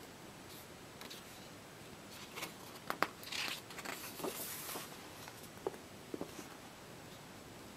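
Paper pages of a colouring book being handled and turned: a few light crinkles and clicks, a papery swish as a page goes over about three to five seconds in, then a few soft taps as the hand presses the pages flat.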